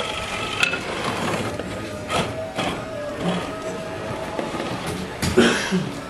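1/10-scale RC rock crawler working over the course: a whine from its motor and gears, with irregular clicks and knocks as it climbs the obstacles, the loudest a little over five seconds in.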